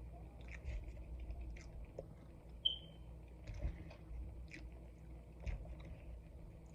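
Close-miked ASMR chewing of soft food, with scattered wet mouth clicks and smacks and a few louder ones through the middle. A brief high squeak comes a little under 3 seconds in.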